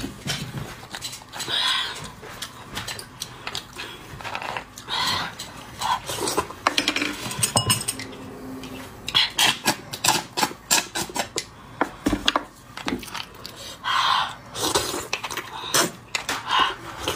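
Metal spoon clinking and scraping against halved beef marrow bones, with many short sharp clicks, mixed with wet slurping and sucking as the marrow is eaten straight from the bone.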